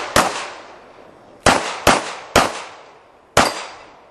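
Gunshots from an IPSC competitor shooting a stage: five single shots, a lone one then a quick run of three about half a second apart and one more, each trailing off with an echo.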